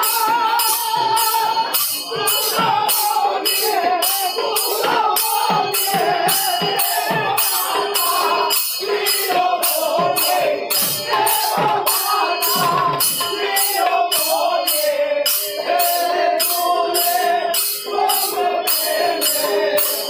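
Bishnupriya Manipuri devotional kirtan: voices singing a wavering melody over hand cymbals struck steadily about twice a second, with a barrel drum.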